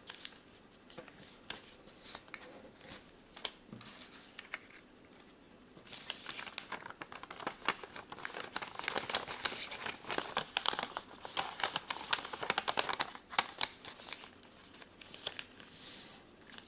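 Origami paper being folded and creased by hand: crisp crinkling and rustling with short scrapes of the sheet. It is sparse at first and becomes busier about six seconds in.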